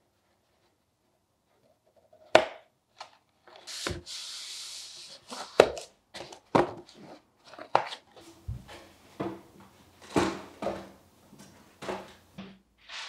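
Handling sounds: after a couple of seconds of silence, cardboard boxes are knocked and slid on a table, with one longer scraping stretch. Then come many light knocks as plastic supplement bottles are set into a cardboard box on a shelf, over a faint low hum.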